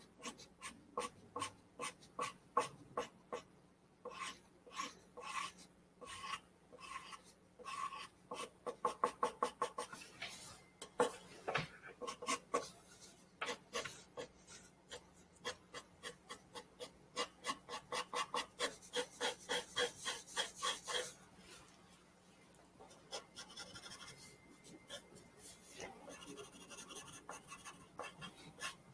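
Graphite pencil scratching on drawing paper in short, repeated shading strokes, about two or three a second, quickening into fast runs of strokes about eight seconds in and again around eighteen to twenty-one seconds. Lighter, softer strokes near the end.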